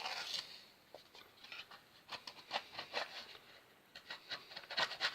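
Thin-bladed filler knife scraping old wallpaper out from behind a wall socket box, in short scratchy strokes that come thickest near the end.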